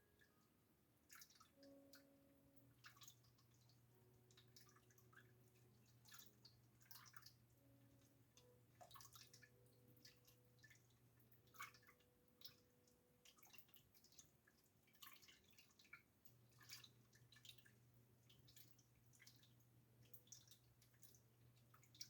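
Near silence: a pot of pickle brine heating on an electric stove, giving faint, irregular ticks and pops, over a faint low hum.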